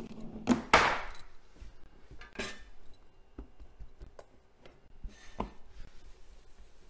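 Kitchen handling sounds as a pizza dough ball is taken from a metal bowl and opened by hand on a countertop. A loud rustle comes about a second in, then scattered light knocks and taps.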